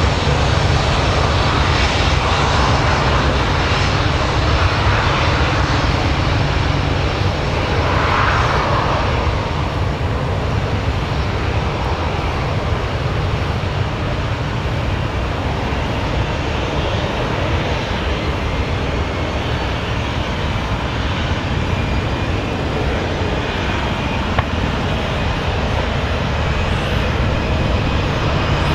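Airbus A320-200 jet engines running as the airliner rolls out along the runway after landing: a steady, loud rumble with a faint whine, easing a little about a third of the way through.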